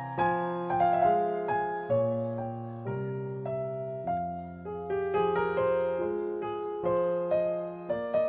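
Background piano music: a slow melody of single struck notes, each fading away, over lower sustained notes.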